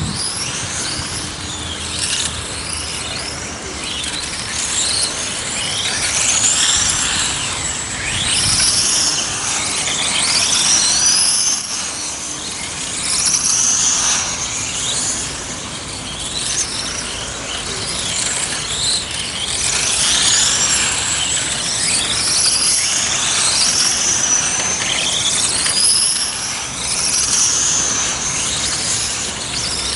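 Electric radio-controlled race cars lapping a circuit: several high-pitched motor whines overlap, rising and falling over and over as the cars accelerate and brake, and the sound swells and fades every few seconds as the cars pass.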